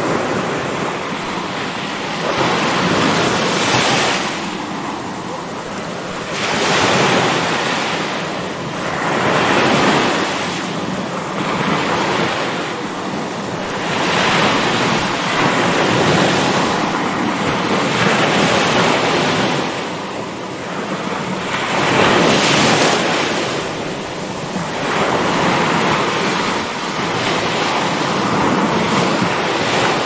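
Stormy surf: rough waves breaking and rushing, swelling and falling back about every three to four seconds.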